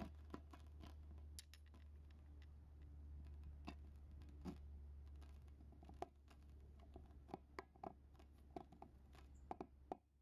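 Faint clicks, scratches and small squeaks of hands screwing a fiberglass stem into the plastic cup on an inflated rubber balloon, coming more often in the second half, over a low steady hum.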